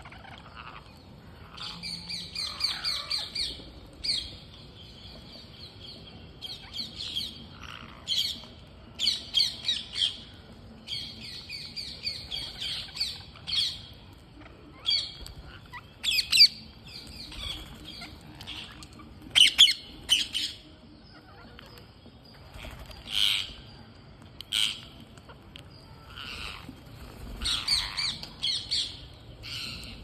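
Flock of rose-ringed parakeets calling: bursts of harsh, rapid screeching notes, several birds at once, coming in clusters every few seconds with a few louder single shrieks.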